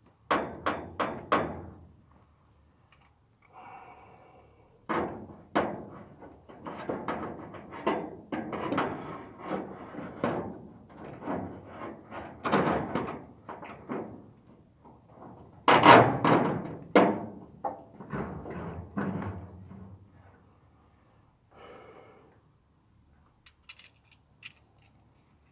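Claw hammer knocking on a wooden frame from below: a quick run of about five blows, then many more blows in irregular runs, the loudest a little past the middle, with a few faint knocks near the end.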